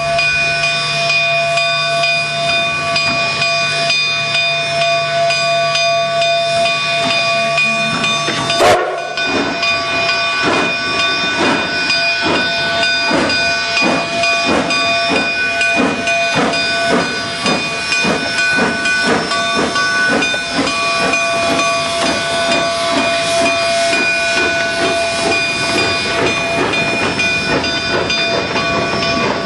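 Narrow-gauge steam locomotive (D&RGW K-36 No. 487) hissing steam with steady whistling tones. About nine seconds in there is a sharp burst, then the exhaust chuffs in a regular beat as the engine moves off.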